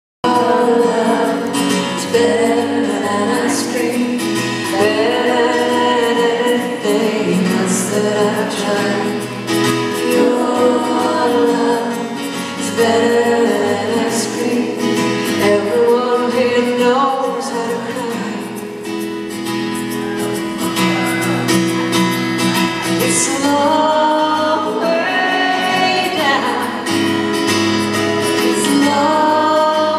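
A woman singing a slow song live, accompanying herself on a strummed acoustic guitar, recorded from the audience.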